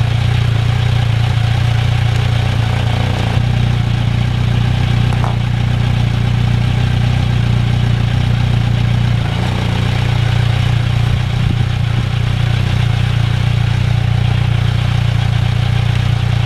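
Kawasaki Versys 1000's inline-four engine idling steadily through a 14-inch Holeshot Comp 2 slip-on muffler, the larger, less restrictive core. The idle is real quiet, only a touch louder than with the quieter street-core muffler.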